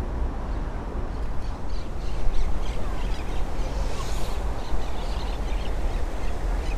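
Birds calling in short, scattered cries over a steady low rumble.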